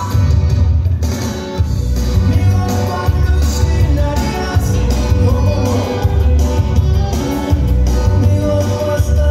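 Loud dance music with heavy bass and a singing voice, played over a party DJ sound system.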